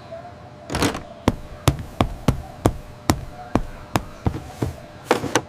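A series of sharp knocks, about two to three a second and slightly uneven, with a short noisy rattle about a second in and another near the end.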